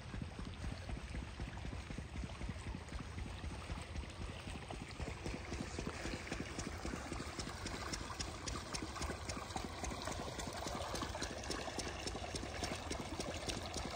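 Water gushing from an irrigation pump's discharge pipe into a muddy field channel, growing louder about halfway through, over a steady low rumble.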